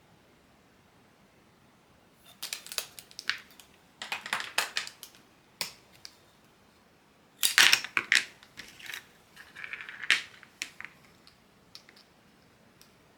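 Craft materials being handled on a worktable: several bursts of crisp rustling and clicking, with pauses between, the loudest about halfway through.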